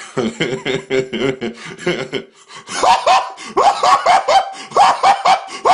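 A man laughing in short, rapid bursts, low-pitched for the first couple of seconds. From about halfway the laugh turns higher-pitched and repeats about three times a second.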